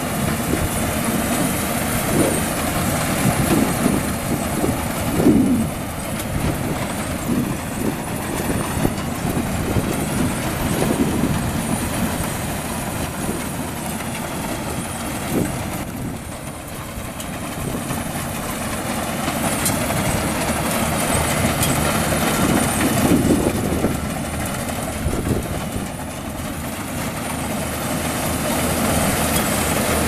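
Yanmar YH850 combine harvester running steadily while cutting rice: its diesel engine and the reel, cutter and threshing machinery working together under load.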